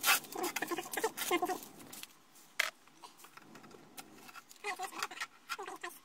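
Masking tape ripped off a plastic car centre console right at the start, then the console handled, with short squeaks and rustles and a sharp click about two and a half seconds in.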